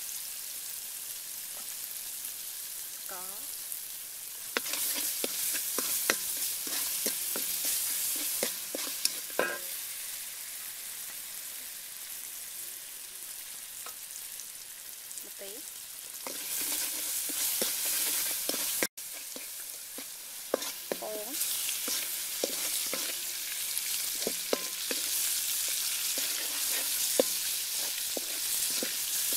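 Oil sizzling in a metal wok, with a wooden spatula scraping and knocking against the pan as the food is stirred. The sizzle grows louder a few seconds in and again a little past halfway.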